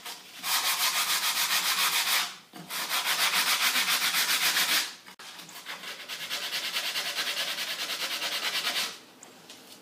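A thin wooden strip being rubbed quickly back and forth over a sheet of sandpaper laid flat, a rapid rasping scrape of several strokes a second. It comes in three bouts with short pauses between, the last one the longest, and stops shortly before the end.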